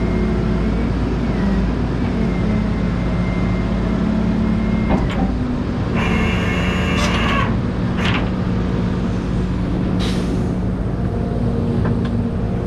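Heavy vehicle engine running steadily, likely the tow truck, with a short bright higher-pitched burst about six seconds in and a few sharp clicks.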